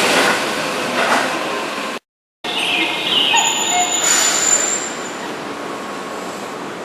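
A Keihan Electric Railway commuter train running through the station, a steady rumble of rail noise. It cuts out completely for a moment about two seconds in, and a thin high whine sounds for about a second and a half near the middle.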